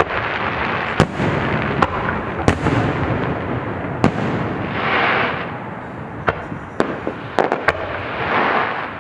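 Fireworks going off: sharp bangs every second or so over a continuous noisy rumble of many bursts, with two louder hissing swells, one mid-way and one near the end.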